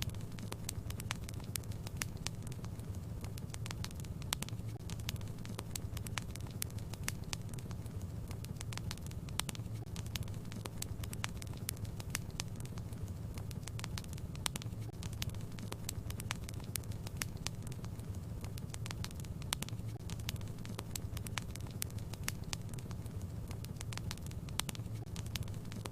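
Wood fire burning in a fireplace: a steady low rumble with many sharp, irregular crackles and pops.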